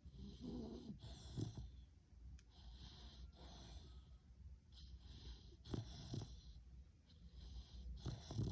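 A dog snoring in its sleep: a noisy breath about every two and a half seconds, each with a low rattle and a hissing exhale.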